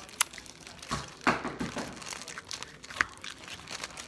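Homemade sequin slime being handled and squished by hand: crinkling and sticky squelching, with a few sharp clicks.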